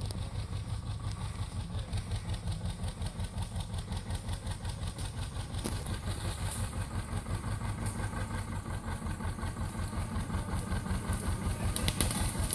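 Bolinder-Munktell Victor 230 tractor's engine idling with an even, steady throb of about four beats a second.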